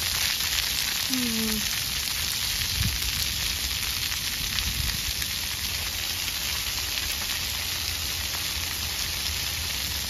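Splash pad water jets spraying steadily onto wet concrete: a continuous hiss of falling water.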